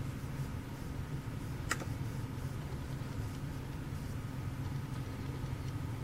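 A steady low hum, with a single sharp click a little under two seconds in, a laptop key press.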